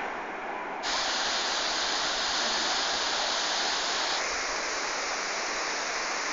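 Waterfall: a steady rush of falling water, a little duller for the first second.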